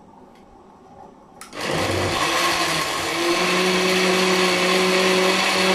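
A click about a second and a half in, then an electric countertop blender starts and runs steadily, pureeing watermelon chunks with water in its glass jar.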